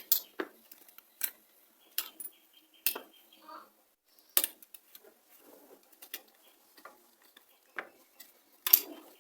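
Irregular sharp clicks and taps of small plastic and metal parts as a keypad mobile phone's casing is opened and handled by hand, the loudest near the start, midway and near the end.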